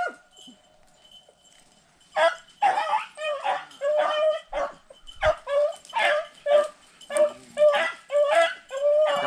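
Beagles barking: high yelps in a quick, steady run of about two a second, starting about two seconds in.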